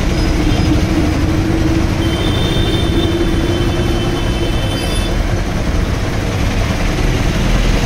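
Belt-driven single-piston air compressor with a 0.5 hp Crompton single-phase motor running steadily.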